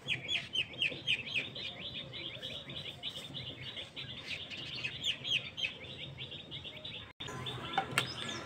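Small birds chirping busily, many short rapid chirps overlapping one another, cut off for an instant about seven seconds in before carrying on.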